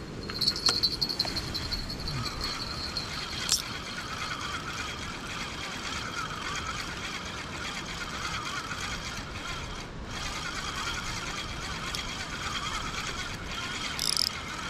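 A spinning reel on a feeder rod being wound, a steady mechanical whirring with a rattle near the end.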